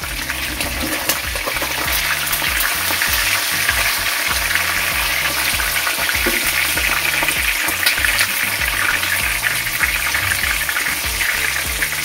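Whole fish frying in hot oil in a pan: a steady sizzle, with light scraping and ticks of a spatula as the fish is turned. Low bass notes of background music run underneath.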